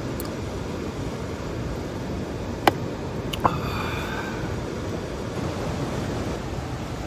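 Steady rushing water noise of a mountain stream. Two sharp clicks about two and a half and three and a half seconds in, the second followed by a brief ringing for about a second.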